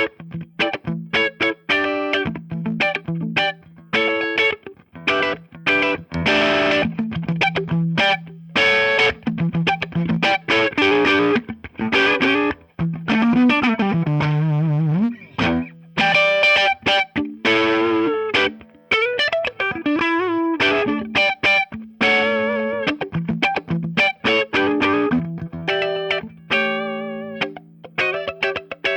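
Electric guitar (PRS Custom 24-08) played through a PRS Mary Cries optical compressor pedal into a PRS Archon 25 amp. It plays a run of picked single notes and chords, with a long bent note about halfway through and wavering vibrato near the end.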